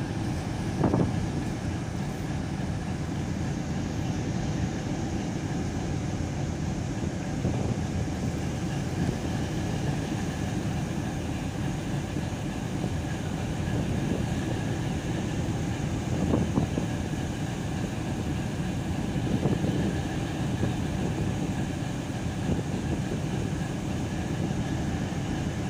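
Steady low drone of a boat's engine mixed with wind and water noise as the boat crosses choppy water, with a few brief louder thuds.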